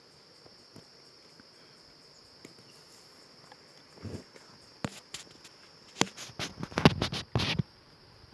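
Insects chirring steadily in one high, even band, with a run of irregular rustles and crunches that starts about halfway through and is loudest near the end.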